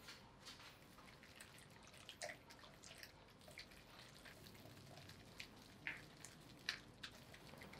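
Wire whisk working beaten egg into thick churro dough in a frying pan: faint, irregular clicks and wet squishes, a few a second, some sharper than others.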